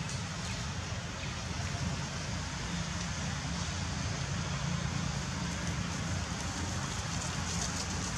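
Steady outdoor background noise: a low rumble under a constant hiss, with a few faint light ticks near the end.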